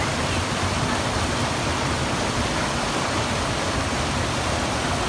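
Waterfall water rushing steadily, an even noise that does not change.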